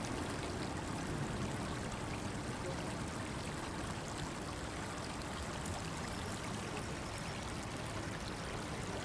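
Small river flowing, a steady even rush of running water.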